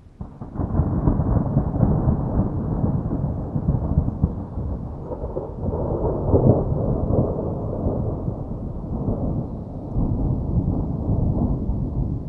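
Thunderstorm sound effect: a long, heavy roll of low thunder rumbling continuously, swelling louder a little past the middle and again near the end, with rain noise under it.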